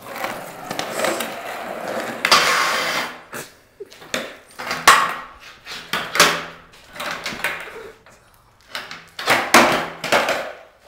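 Skateboard wheels rolling on a concrete floor, then a series of sharp clacks and scrapes as the board hits the floor and a low metal rail.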